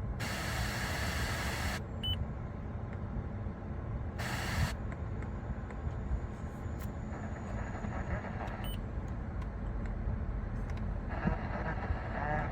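Car radio of a 2008 Toyota Camry switching between radio stations: a burst of loud static hiss lasting nearly two seconds, then a second short burst around four seconds in, with faint station audio coming through later.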